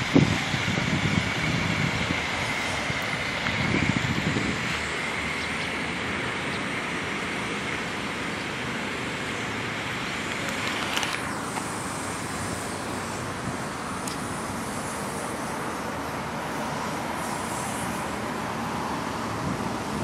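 Steady outdoor vehicle noise, a continuous rumble and hiss with no clear engine note, changing abruptly about eleven seconds in.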